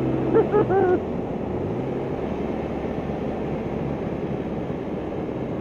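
1999 BMW R1100RT's boxer twin running steadily at a highway cruise of about 70 mph, its pitch held level, under a haze of wind and road noise.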